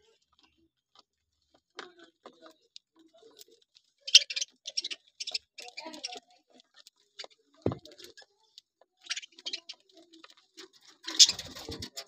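Budgerigars feeding: sparse small ticks of pecking, with short bursts of budgie chatter about four to six seconds in, again around nine seconds, and loudest near the end. One low knock about two-thirds of the way through.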